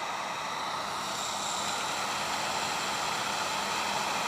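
Electric heat gun blowing steadily, a continuous rushing hiss of fan and hot air with a faint steady hum underneath.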